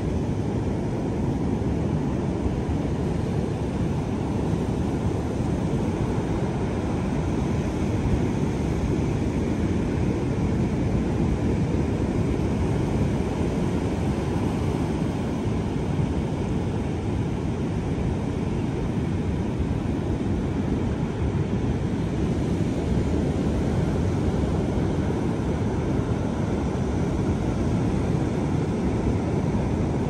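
Surf breaking along a sandy beach, a steady low rumble of waves with wind blowing on the microphone.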